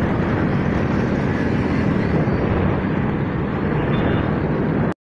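Kawasaki Fury 125 two-stroke motorcycle engine running steadily at cruising speed under heavy wind rush on the microphone. The sound cuts off suddenly near the end.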